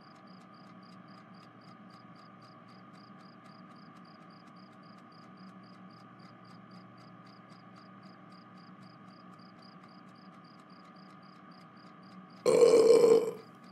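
Faint cricket chirping at a steady two to three chirps a second over a low hum, then a loud burp lasting under a second near the end.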